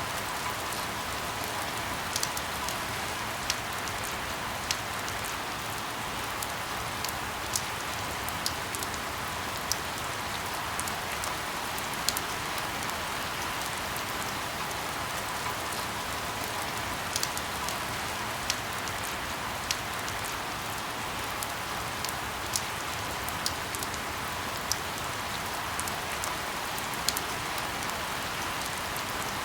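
Steady rain, an even hiss with scattered sharp drip ticks, a couple of them a second, standing out above it.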